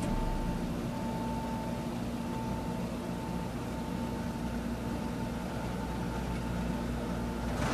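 Keisei 3000 series electric train standing at a stop signal, heard from inside a passenger car. A steady hum of its on-board electrical equipment, with a faint higher whine that breaks off about once a second and a short click near the end.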